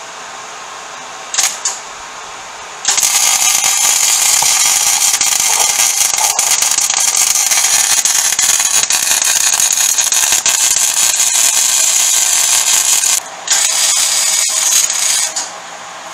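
Electric welding arc crackling and hissing as sheet-metal plug welds go into the firewall extension through drilled spot-weld holes: a brief first strike, one long run of about ten seconds, then a shorter run of about two seconds.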